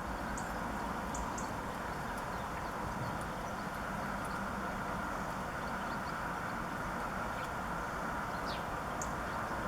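Small garden birds giving brief, scattered high chirps and calls over a steady background noise.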